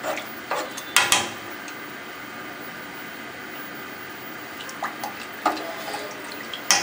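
A metal spoon stirs lentils and water in a pot. There are a few sharp clinks of the spoon against the pot, the loudest about a second in and near the end, over a steady low hiss.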